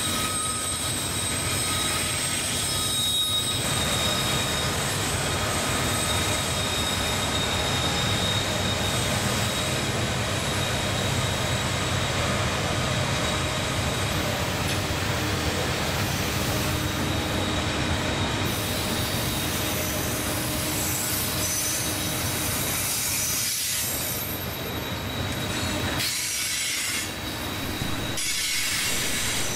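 Freight train of covered hopper cars rolling past on a curve. Its steel wheels squeal with steady high-pitched tones over the noise of the rolling cars.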